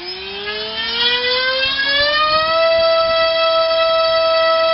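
Turnigy D2826 2000 kV brushless outboard motor spinning a TGS 6x4 propeller on 3S, throttled up on a thrust stand. Its whine rises in pitch over the first two seconds or so, then holds a steady high pitch under load.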